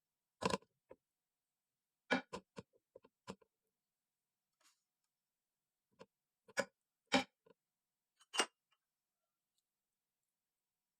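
Cooking utensils clinking and knocking against a pot: about a dozen short, sharp knocks in irregular clusters, with silence between.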